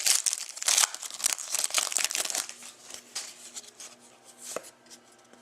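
Crinkling and rustling of trading cards and their packaging being handled, a dense run of rapid crackles for the first two and a half seconds, then only a few quieter ticks.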